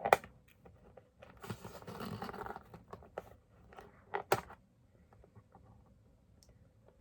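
Doll box packaging being worked open by hand: a sharp snap at the start, a rustling, tearing stretch about a second and a half in, another sharp snap a little past the middle, then faint ticks of handling.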